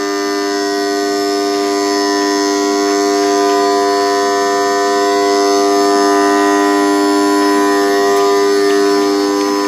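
Electric irrigation pump motor running on mains power: a loud, steady electrical hum with a tight stack of overtones that holds unchanged throughout.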